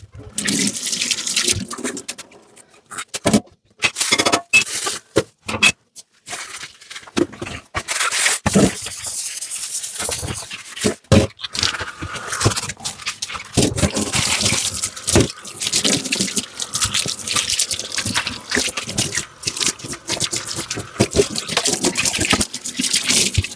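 Dishes being washed by hand at a sink: scrubbing, water running and the clink of dishes. The sound comes in short stretches that cut off and restart abruptly many times.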